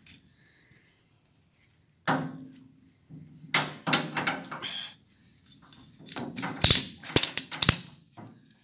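Ratchet strap being tightened: a quick run of sharp ratchet clicks near the end, after softer knocks and handling noise. The strap is being taken up to pull a bent door straight.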